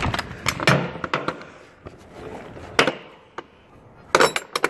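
Metal clanks and clicks from the latch and handle of a box truck's roll-up rear door being worked and shut: a few sharp knocks at the start, one in the middle and a quick cluster near the end.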